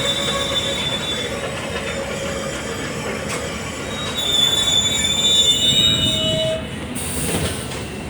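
Wheels of a class 472 S-Bahn electric train squealing over steady rolling noise, heard from inside the car. A high squeal fades in the first second, and a louder one sets in about halfway through and stops about two seconds later; a short hiss follows near the end.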